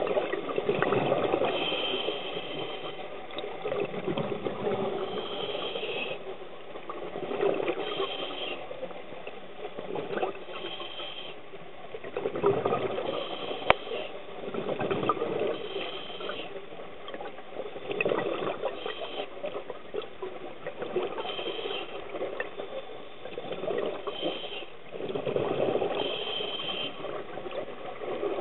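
Scuba breathing heard through an underwater camera housing. A bubbly gush of exhaled air from the regulator comes every few seconds, with a short hiss from the regulator on each inhale in between. A single sharp click stands out about halfway through.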